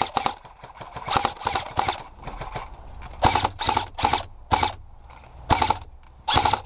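Airsoft rifle fire: quick bursts of rapid shots in the first two seconds and again near the end, with single shots spaced about half a second to a second apart in between.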